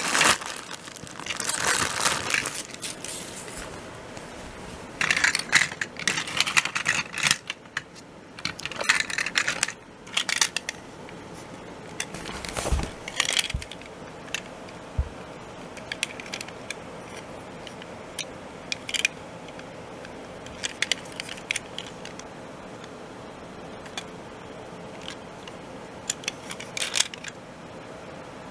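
Clear plastic packaging crinkling and rustling as a Plarail toy train car is taken out of its bag, in bursts through the first half. Then a couple of dull knocks and scattered small clicks as the hard plastic toy cars are handled.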